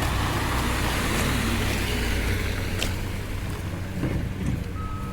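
Traffic on a snow-covered street: a steady rushing wash of tyres on the wet road with a low engine rumble that eases after about three seconds. A vehicle's reversing beep starts near the end.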